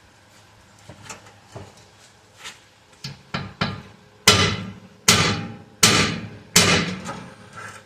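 Hammer strikes: a run of light taps, then four heavy blows about three-quarters of a second apart, each ringing briefly, and one last lighter tap.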